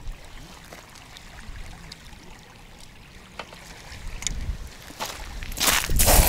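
Small waves lapping on a shingle and shell shore, with a low wind rumble and a few light clicks. Near the end comes a loud, brief rustling crunch of handling as the rod is set down.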